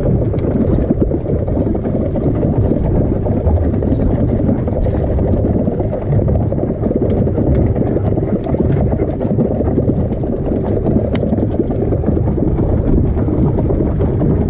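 Wind buffeting the camera microphone on an open boat: a loud, steady, uneven low rumble, with a few faint clicks over it.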